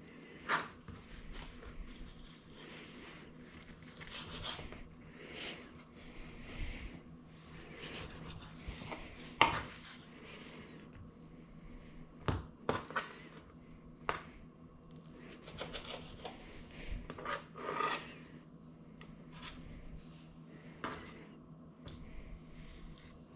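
Kitchen food-prep handling sounds: scattered knocks and clinks of dishes and utensils with some rustling, over a steady low hum.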